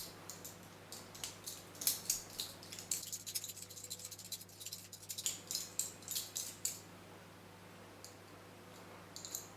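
Small metallic clicks and ticks of an Allen key working the grub screw out of a Gainsborough door lock barrel. They come in a quick, uneven run for most of the first seven seconds, then only a couple of stray clicks.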